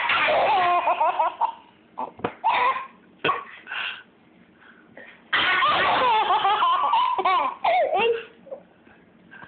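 A young child laughing hard in high-pitched bursts: one in the first second and a half and a longer one from about five to eight seconds in, with short coughs in between.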